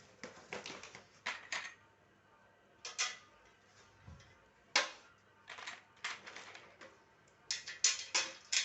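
Scattered sharp clicks and clacks at uneven intervals, some in quick clusters, of hard parts being handled and fitted while a sewing machine is set up.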